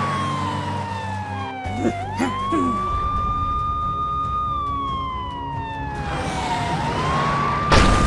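Police car siren wailing: its pitch rises quickly, holds, then slides slowly down, and rises again, over background music. A sharp thump near the end is the loudest sound.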